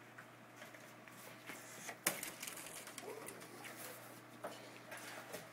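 A large cardboard shipping-box lid being pulled off by hand: cardboard rustling, scraping and squeaking, with one sharp snap about two seconds in.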